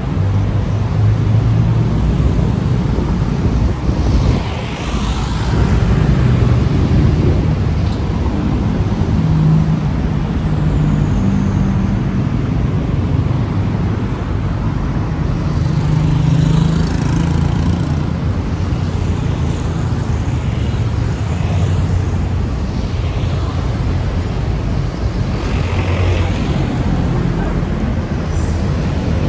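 Steady road traffic, with vehicle engines running and vehicles passing one after another in a continuous rumble.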